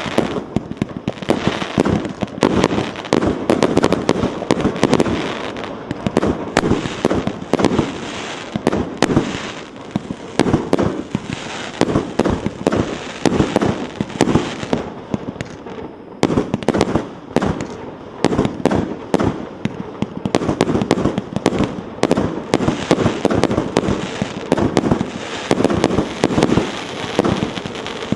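A 150-shot 1.2-inch fireworks cake ("Northern Lights") firing shot after shot in rapid, dense succession, the launches and bursts overlapping into a continuous barrage.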